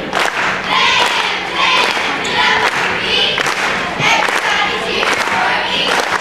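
A group of girls' voices chanting a cheer in unison, in a steady rhythm of about two shouted beats a second.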